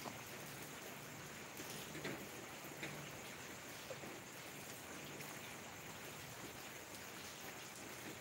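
Steady rain falling, with a few louder single drops or taps standing out now and then.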